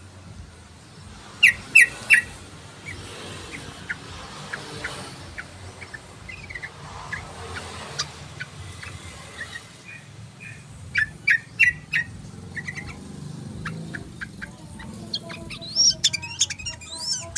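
Yellow-vented bulbul calling: scattered short chirps, with a few loud clusters of quick notes and a rapid bubbling phrase near the end.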